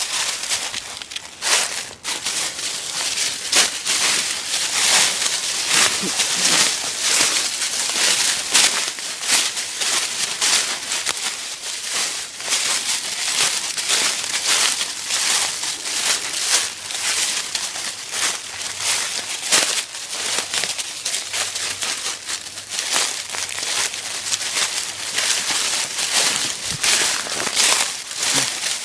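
Dry fallen leaves crunching and crackling underfoot as a person and dogs walk through thick leaf litter, in a steady irregular run of crisp steps.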